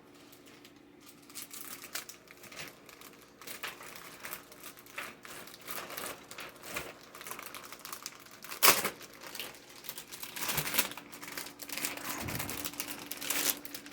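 Plastic packaging crinkling and rustling as it is handled and opened, in irregular crackles, loudest about nine seconds in.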